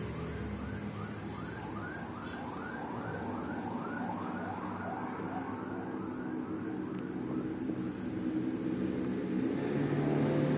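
A siren wailing up and down about twice a second, fading out after about eight seconds, over a low steady hum that grows louder near the end.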